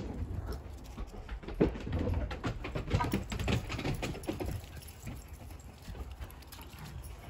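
Irregular soft thumps and rustling of footfalls and scuffling on grass, busiest in the middle, over a low rumble.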